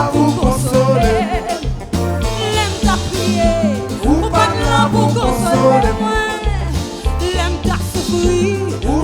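Live Haitian konpa band playing, with a bass line and a sung, wavering vocal melody over it.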